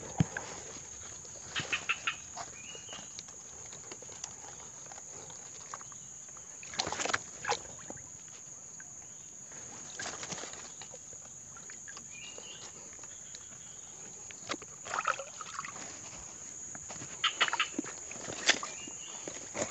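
Water splashing and sloshing in a shallow stream and leaves rustling as hands reach into the water and push through ferns, in irregular bursts. A steady high-pitched insect drone runs underneath.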